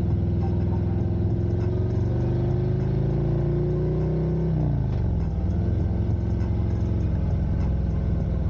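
Harley-Davidson Street Glide Special's V-twin engine pulling on the road, its note rising slowly, dropping abruptly a little after four seconds in at a gear change, then climbing again as the bike accelerates.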